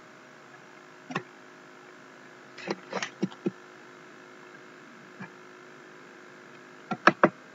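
Computer mouse clicks: a scattered handful of short sharp clicks, a cluster of them around the middle and a quick run of three near the end, over a steady electrical hum.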